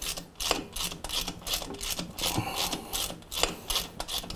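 Socket ratchet clicking in irregular runs as a 10 mm bolt on a motorcycle swingarm's chain guide is worked. The bolt is not coming out, and the weld nut inside may be stripped.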